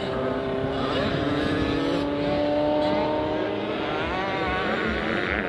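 Several small two-stroke 85cc and 65cc motocross bikes racing, their engines revving, with the pitches gliding up and down as they go by.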